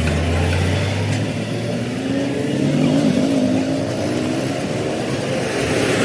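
A motor vehicle's engine running, its pitch rising gradually over the last few seconds.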